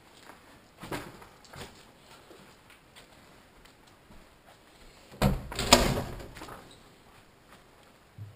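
Footsteps and a few light knocks on a debris-strewn floor, then about five seconds in a loud bang and scrape lasting about a second as a wooden door is pushed open.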